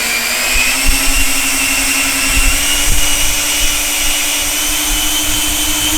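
Two Schübeler electric ducted fans of a large RC jet running at high power in a thrust test, their whine rising slowly in pitch as they spool up, with an uneven low rumble underneath.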